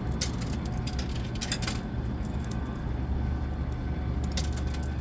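Coins being fed into an antique coin-operated soda vending machine, clinking several times as they drop through the coin mechanism, over a steady low hum.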